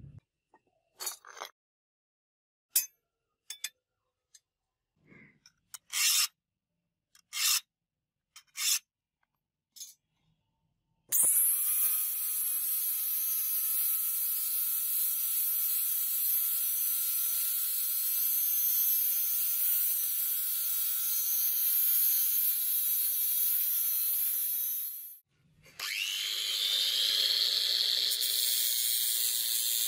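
A handful of short knocks and clicks from a steel cleaver blade being handled. Then an angle grinder runs steadily with a high whine as its thin disc cuts into the edge of the hand-forged steel blade. A few seconds before the end it cuts out for a moment and starts again at a changed pitch.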